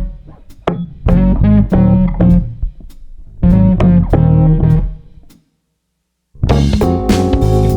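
Background music of plucked guitar over bass. It breaks off into silence for about a second and comes back with held chords and drums.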